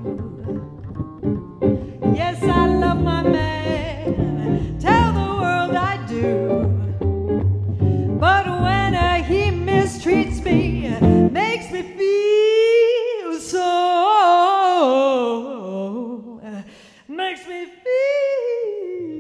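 Jazz trio playing: a singer over guitar and bass. About twelve seconds in the accompaniment drops away and the voice carries on alone in long held notes with vibrato, and the bass comes back in near the end.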